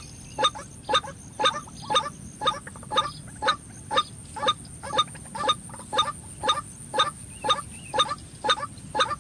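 White-breasted waterhen call: a harsh, pitched note repeated very evenly, about two a second.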